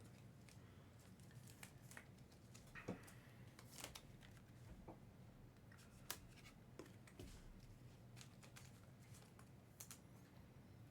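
Near silence with faint, scattered clicks and rustles of trading cards being handled, over a low steady room hum.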